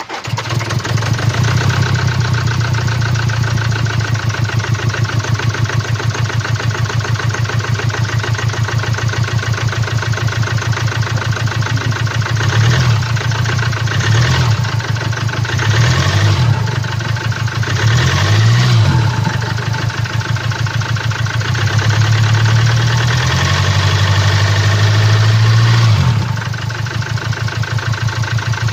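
Land Rover Discovery TD4's 2.0-litre four-cylinder diesel (204DTD) idling with a regular pulse just after starting. The revs rise briefly several times, then are held higher for a few seconds near the end. The uneven engine noise is caused by a defective fuel injector.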